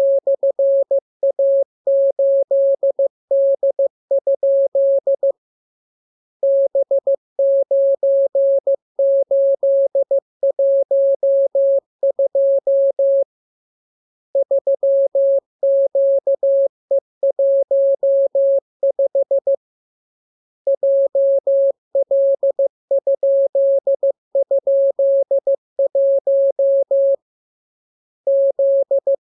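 Morse code sent as a single steady mid-pitched tone, keyed on and off in dots and dashes. The characters come in runs broken four times by pauses of about a second.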